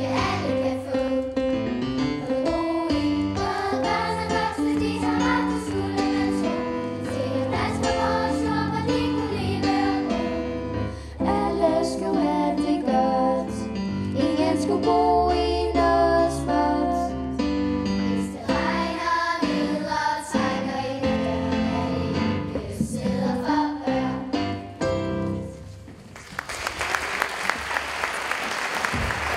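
Children's choir singing a song in Danish with keyboard accompaniment; the song ends about 26 seconds in and audience applause starts near the end.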